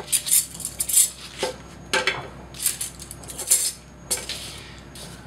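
A metal spoon and a lidded metal camping cook pot clinking and knocking as they are handled and stacked: a string of light, irregular metallic clinks.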